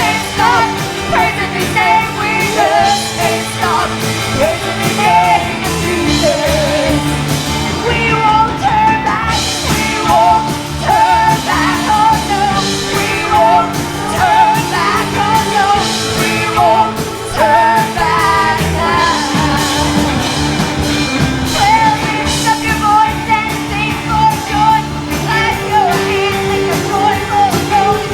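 Live church praise band playing an upbeat gospel song with drums and guitar, with singing over it.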